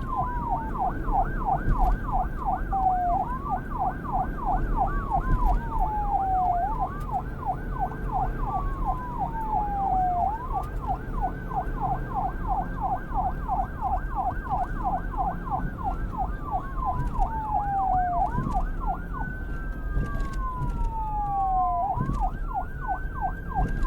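Police car siren switching back and forth between a slow wail, falling over a few seconds, and a fast yelp of about three to four cycles a second. A steady low rumble runs underneath.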